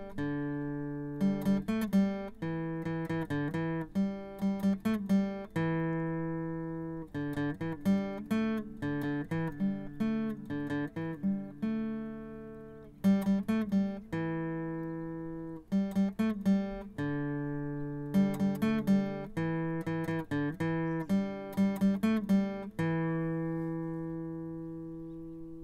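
Instrumental music played on acoustic guitar: short runs of picked notes, each ending on a long ringing chord that slowly fades.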